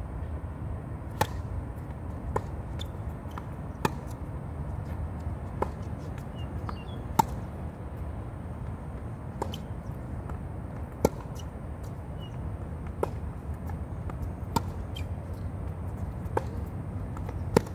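Tennis rally on a hard court: sharp pops of the ball struck by rackets and bouncing, about one every one to two seconds and varying in loudness, starting with a serve about a second in.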